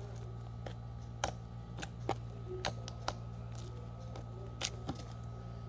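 Foam slime being kneaded and pressed by hand, giving about ten irregular sharp clicks and pops over a steady low hum.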